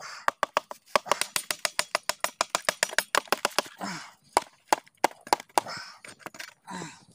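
A knife tapping on a charred bamboo tube to knock the cooked chicken out of it: quick sharp taps, about five or six a second for the first few seconds, then slower, scattered knocks.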